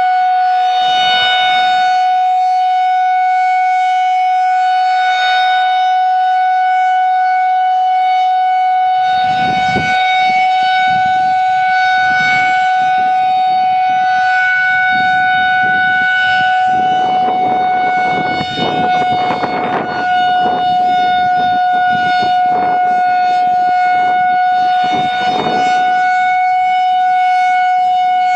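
Federal Signal 2001-130 rotating outdoor warning siren sounding a steady single tone in a monthly test, its loudness swelling and fading every few seconds as the rotating horn sweeps past. The pitch holds constant throughout.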